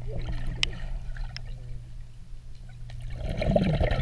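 Underwater sound in a swimming pool: a steady low hum with scattered small clicks, then about three seconds in a louder burst of bubbling as a submerged swimmer breathes out.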